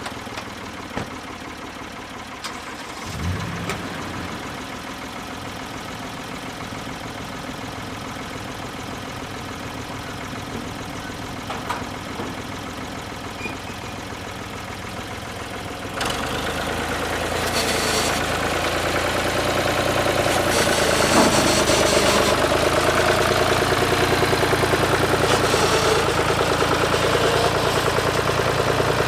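Portable band sawmill's gas engine running steadily. About sixteen seconds in it gets louder and a rough hiss joins it, which then carries on.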